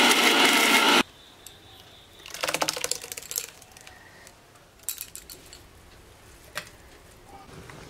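Havells electric mixer grinder running loudly while grinding steamed spinach and coriander leaves into paste, switched off about a second in. After that a spoon clinks and scrapes against a steel bowl as the paste is scooped out, with a few more single clinks near the end.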